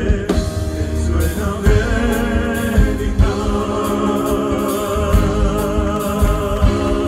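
Live concert music: three male singers singing together over a backing band of keyboard, bass guitar and drums, settling into long held notes about three seconds in.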